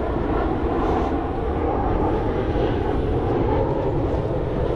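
Wind buffeting the camera microphone: a loud, steady rumble.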